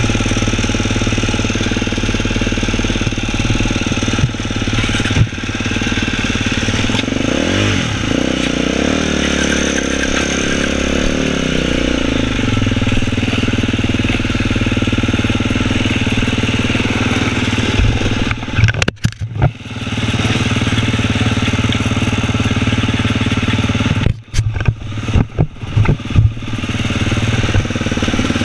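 KTM enduro motorcycle with an FMF exhaust running under way on the trail. The engine note rises and falls with the throttle, and twice in the second half it dips sharply and stutters as the throttle is chopped.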